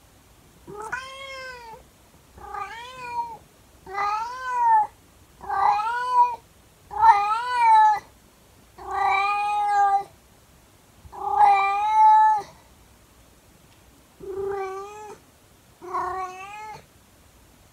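An elderly 24-year-old cat howling: nine long, drawn-out meows in a row, each rising and then falling in pitch. The calls grow longer and louder toward the middle, then shorter and quieter near the end.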